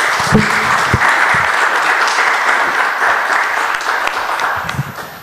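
Small audience applauding, easing off near the end.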